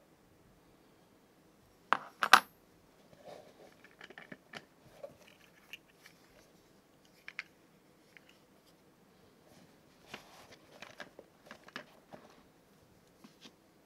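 A forged metal S-hook set down on a cutting mat: two sharp metallic clinks about two seconds in, the second with a brief ring. Quieter scattered clicks and rustling follow as the leather pouch is handled.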